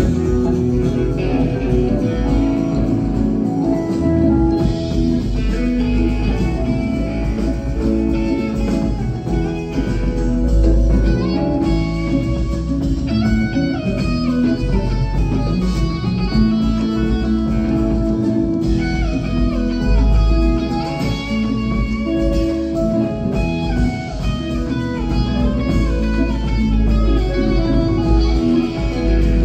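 Live rock band playing an instrumental passage: electric guitar lines running over bass, drums, keyboard and congas, loud and steady.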